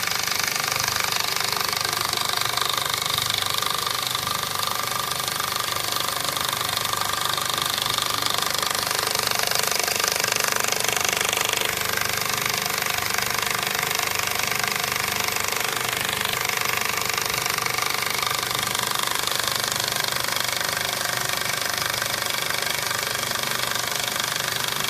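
Industrial mattress border zipper sewing machine running steadily, its needle stitching with a fast, even mechanical chatter.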